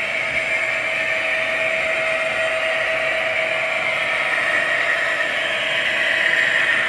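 Hornby TTS Class 66 sound decoder playing the recorded Class 66 two-stroke diesel engine through an upgraded speaker in the model locomotive. The engine sound runs steadily and gets a little louder near the end as the model comes closer.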